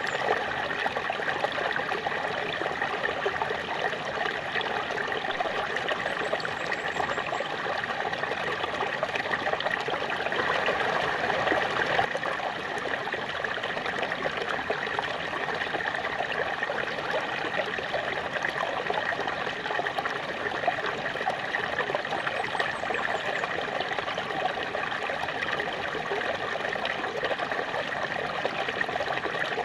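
Small waterfall splashing and rushing steadily, an even, unbroken wash of falling water.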